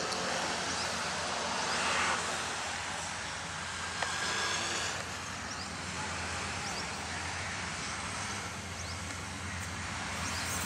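ZCU-30 diesel-electric locomotive approaching with a coal train, its engine giving a steady low drone under the rumble of the train.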